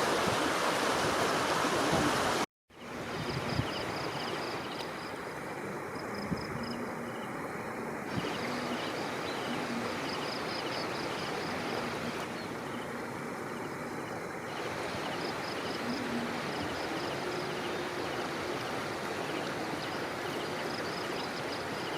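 Floodwater flowing with a steady rushing sound, cut off briefly by a dropout a couple of seconds in. Over the water after the dropout, a high rapid chirping repeats in stretches.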